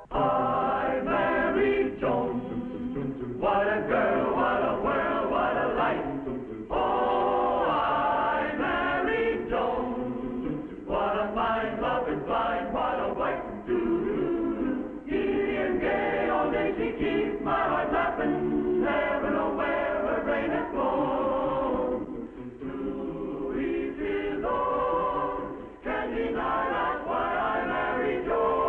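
A choir singing a television theme song in short phrases with musical backing. The sound is thin and muffled, with little treble.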